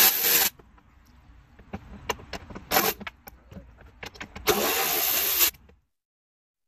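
Cordless electric ratchet whirring in short trigger pulls as it runs out the jet-pump mounting bolts on a jet ski. There are two runs of about a second each, one at the start and one about four and a half seconds in, with a brief blip near three seconds and light clicks of tool and bolts between.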